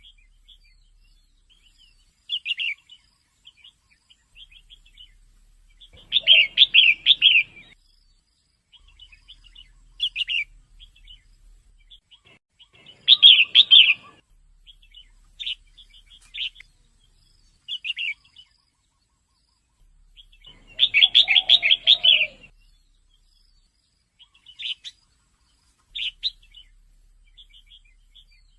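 Red-whiskered bulbul, given as a female, calling: three loud bursts of quick chattering notes about seven seconds apart, with single short chirps in between.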